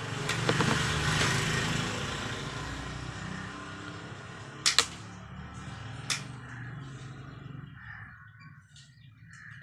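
Rustling of wire being handled, then sharp snips of a wire cutter cutting through electrical wire: two close together about five seconds in and one more about a second later.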